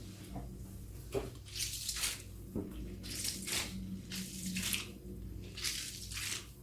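Wet squelching and crackling as a squishy antistress toy is squeezed and kneaded by hand, in irregular bursts about once or twice a second.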